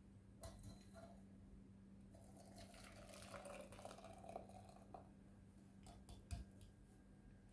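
Faint trickle of liquid being poured through a strainer for about three seconds in the middle, with a few light clicks and a sharper knock about six seconds in, over a steady low electrical hum.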